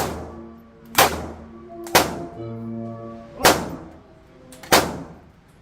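PSA Dagger 9mm pistol firing four single shots, unevenly spaced a second or so apart, being tested for feeding problems. Background music runs underneath.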